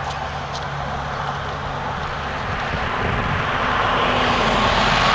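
Motor vehicle noise, a steady rumble and rush that swells louder over the last two or three seconds, as of a vehicle passing close by.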